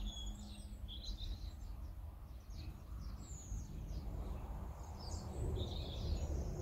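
Small birds chirping now and then, high and brief, over a steady low rumble of wind on the microphone.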